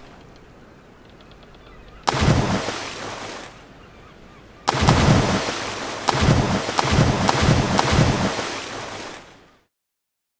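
Soft water ambience, then a sudden loud noise burst about two seconds in, and from about halfway a longer loud stretch of repeated low pulses and sharp clicks that cuts off abruptly near the end.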